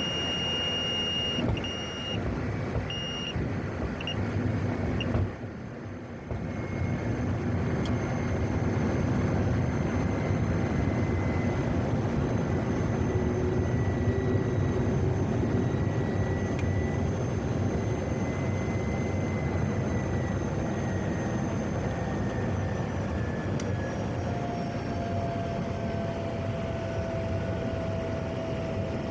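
PAC 750XL's single PT6A turboprop engine running, heard in the cockpit, with a whine that slowly falls in pitch. At the start a high electronic tone sounds steadily, then breaks into a few short beeps.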